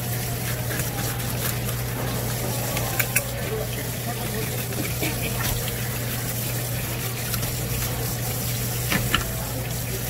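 Water running steadily, over a steady low hum, with a couple of sharp knocks about three seconds in and again near the end.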